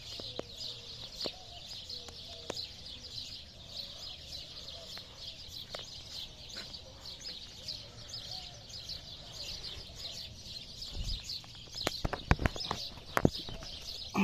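Many small birds chirping at once, a steady busy twittering. Near the end, a run of sharp knocks and low thumps comes in over it.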